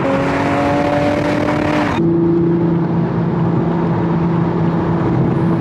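A 2021 Toyota GR Supra's turbocharged 3.0-litre inline-six pulls under acceleration, its note rising for about two seconds. Then it drops in pitch with an upshift and settles into a steady drone at highway speed.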